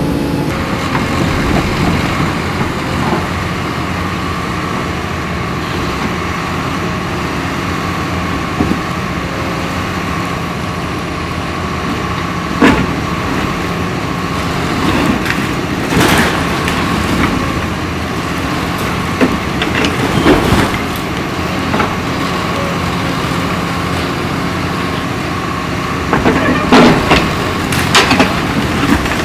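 Hydraulic demolition excavator running steadily, its diesel engine and hydraulics giving a constant hum with a thin whine. Scattered crashes and knocks of building material and debris being pulled down, several closely spaced near the end.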